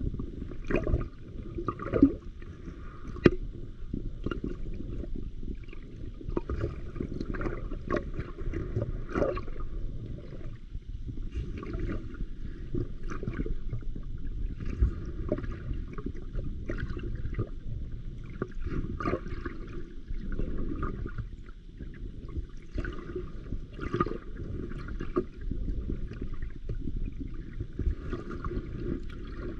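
Underwater water noise from a swimming camera: muffled sloshing and gurgling with scattered clicks and a few sharp knocks.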